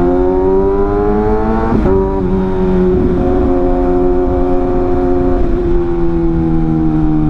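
Kawasaki ZX-6R's inline-four engine pulling with revs climbing, a shift up a gear about two seconds in, then running at steady revs that ease slightly down towards the end.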